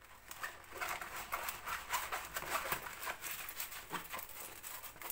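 Rustling and crinkling of a plastic-film-covered diamond painting canvas being rolled up tightly by hand, back against its curl so it will lie flat. It makes a string of small, irregular crackles.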